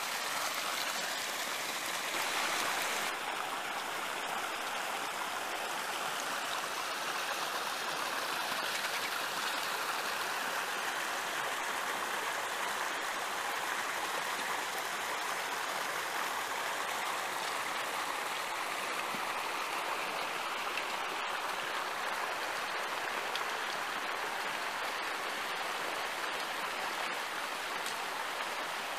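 Creek water rushing over rock slabs and small cascades, a steady rushing that is a little louder in the first three seconds.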